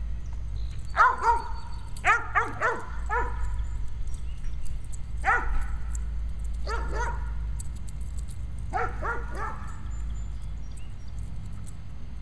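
A dog barking about a dozen times in short clusters of one to three while chasing a flirt-pole lure. Each bark drops in pitch, and the barking stops a few seconds before the end.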